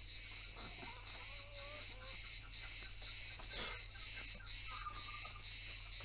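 Cicadas buzzing steadily in a high, even drone, with a few faint short animal calls beneath.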